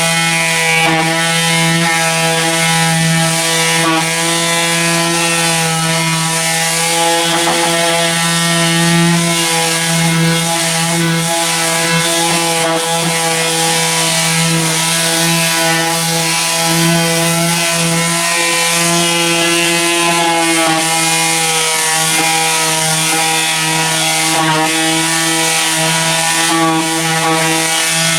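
Electric power sander running steadily against car bodywork, a constant motor hum with a hiss of abrasive over it as old paint is sanded back.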